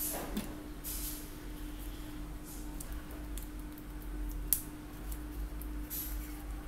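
Soft handling sounds of a rubber balloon being rubbed and stretched onto an air-hose fitting: a short falling squeak at the start, light rustles, and one sharp click about four and a half seconds in, over a faint steady hum.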